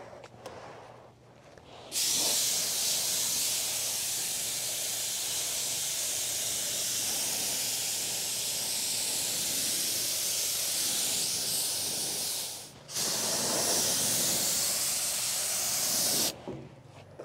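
Compressed-air paint spray gun hissing as it lays a light coat of epoxy primer: one long trigger pull starting about two seconds in and lasting about ten seconds, a brief break, then a second pull of about three seconds that stops shortly before the end.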